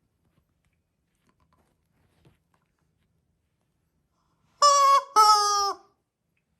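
Squeaky chicken toy squeaking twice in quick succession near the end, the second squeak lower in pitch than the first.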